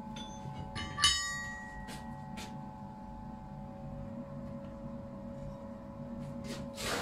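Steel blacksmith's tongs clanking against the other tongs in a stump-mounted holder about a second in, with a brief metallic ring. A steady hum runs underneath, with a few light clicks and a short scrape near the end.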